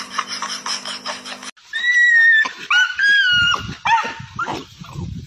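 A dog whining: a run of high-pitched, drawn-out whines that bend slightly in pitch, from a dog eager to get at the water in front of it. Before them comes a short stretch of rhythmic rustling over a steady hum, which cuts off about a second and a half in.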